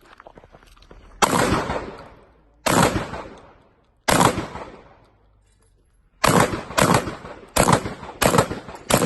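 Shotgun shots fired in a timed match string: three shots about a second and a half apart, then after a two-second pause a faster run of five, each followed by a short echoing tail.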